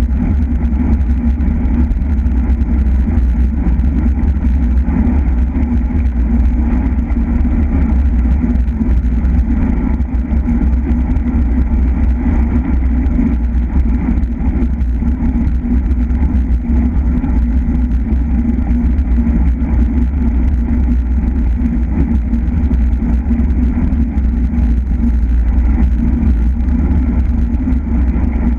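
Loud, steady wind noise buffeting the microphone of a camera on a racing bicycle at speed, mostly a deep low rush with no clear breaks.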